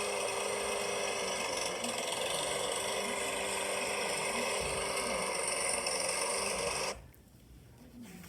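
Lawnmower engine running with a steady zooming noise, then cutting off suddenly about seven seconds in.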